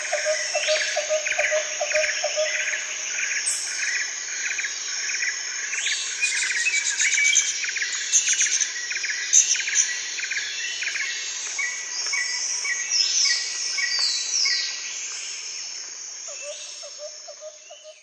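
Rainforest ambience: many birds chirping and calling in quick repeated phrases over a steady high insect drone, with a low pulsing call at the start and again near the end. The whole soundscape fades out over the last few seconds.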